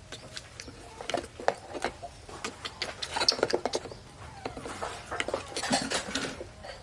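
Irregular light clicks and knocks of hard plastic, with a denser run about three seconds in, as a baby monkey handles a plastic drinking bottle inside a plastic toy dump truck's bed.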